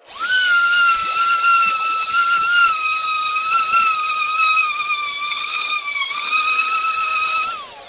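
Random orbital sander running with semi-aggressive sandpaper on the charred interior of a whiskey barrel: a steady high whine that wavers slightly in pitch, then winds down as it is switched off near the end.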